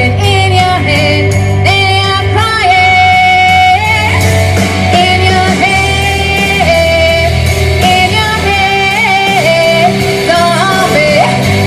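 A woman singing a rock song live over guitar, bass and drum accompaniment, holding long wavering notes.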